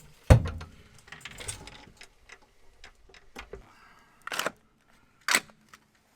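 Metal tools and parts clinking and knocking as they are handled: one sharp knock near the start, scattered light clicks, and two short rattling bursts about a second apart past the middle.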